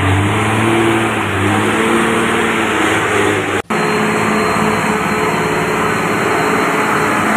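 Truck engine sound running steadily, briefly cut off about three and a half seconds in.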